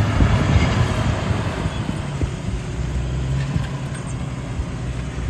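Jeep engine running at low revs, a steady low hum.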